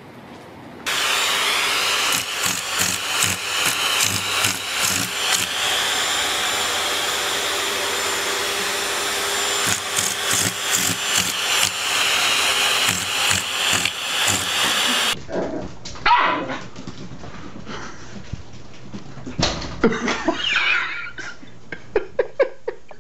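A small appliance motor, vacuum- or blower-like, runs steadily with a loud rushing hiss and a fixed high whine, then cuts off abruptly about two-thirds of the way through. After that a small puppy barks and yips in short sharp bursts.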